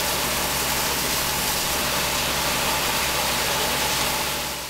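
Fire engine running steadily at the fire ground, under a steady hiss, fading out near the end.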